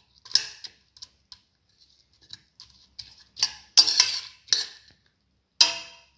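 Metal spoon scraping and clinking against a stainless-steel pressure cooker pot while mixing soaked red lentils with tomato pieces, in a few separate strokes, the loudest run of them about four seconds in.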